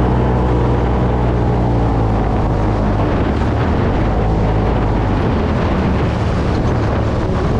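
UTV engine running at speed over a rough sand track, with wind buffeting the microphone. The steady engine note breaks up into a rough, jolting rumble about a second in and starts to come back through near the end.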